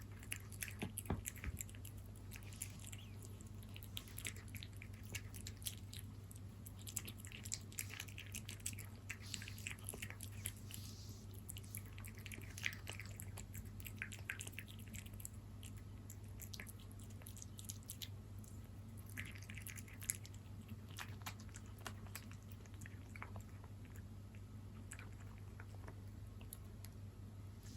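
A cat chewing and licking moist salmon wet food close to the microphone: a run of small wet clicks and smacks, thicker in the first half and sparser later.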